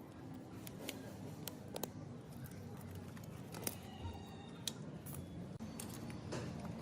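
Light, scattered clicks and taps, about half a dozen, over a low steady hum, typical of small metal parts and hand tools being handled.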